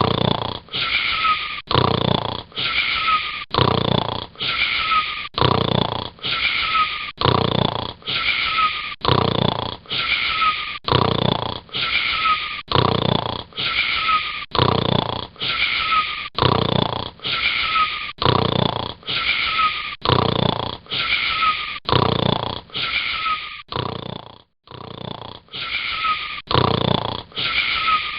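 Wheezy snoring with a high whistle in each breath, repeating steadily about once a second, with a short gap about three-quarters of the way through.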